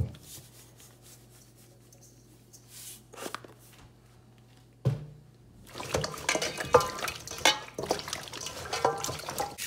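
Hands rubbing and squeezing salted raw chicken drumsticks in a stainless steel bowl, making wet squelching and slapping with knocks against the bowl. It starts about five seconds in, after a quiet stretch with a faint steady hum.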